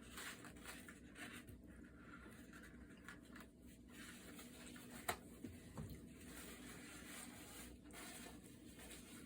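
Faint rustling and light scratching handling noises in a quiet small room, with one sharp click about five seconds in and a couple of softer knocks just after.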